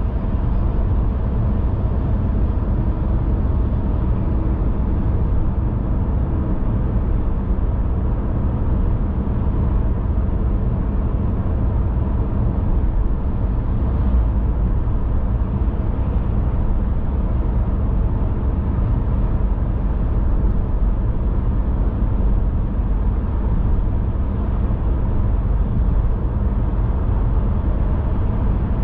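Car driving at a steady speed: a continuous low rumble of road and engine noise that stays even throughout, with no rise or fall.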